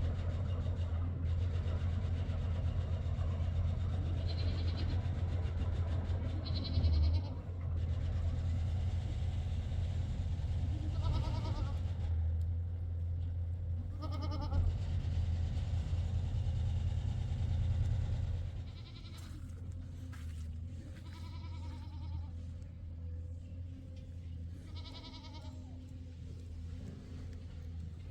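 Goats bleating several times, short wavering calls. Under them a low steady engine hum runs until about two-thirds of the way through, then fades away.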